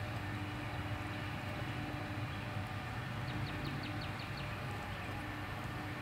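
Outdoor ambience: a steady low rumble like distant traffic. About three seconds in, a bird gives a short trill of roughly seven quick, high notes.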